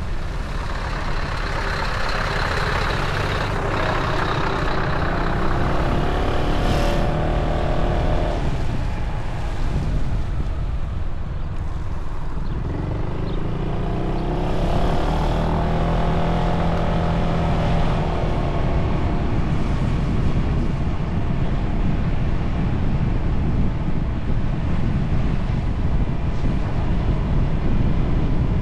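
Yamaha Tricity 300 scooter riding, heard through the camera's built-in microphone with heavy wind buffeting; its single-cylinder engine note rises and falls twice as the scooter speeds up and slows.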